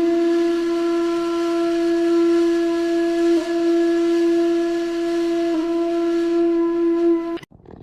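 A single long, steady held note like a wind instrument, broken by two brief dips, that cuts off suddenly near the end.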